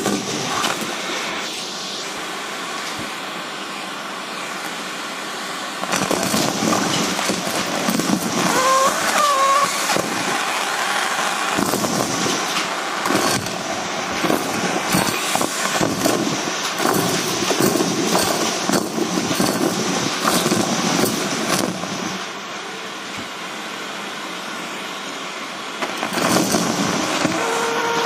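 Vacuum cleaner running through a metal tube, sucking up small debris (paper scraps, sequins, beads, paper clips, small plastic pieces) that rattle and clatter through the metal. The clattering is densest in the middle stretch, with a brief whistle about nine seconds in, and eases off for a few seconds near the end.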